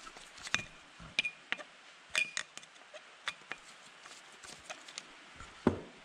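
Steel screwdriver working in the slotted flathead plug on a Polaris RZR 170 engine case, metal against metal: a scattering of sharp clicks, a few with a brief ring, and a heavier dull knock near the end.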